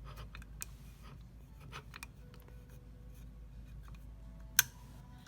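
Small metal parts of an AR-15 upper receiver being handled while the dust cover and its spring are fitted: faint scraping and light clicks, then one sharp click near the end.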